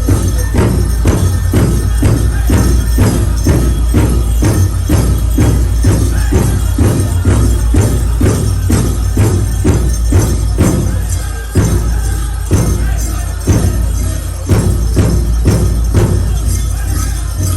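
Powwow drum group playing a steady beat of about two strokes a second under singing, with bells jingling. About two-thirds of the way through, the drumming breaks into a few hard accented strokes about a second apart, then picks up again.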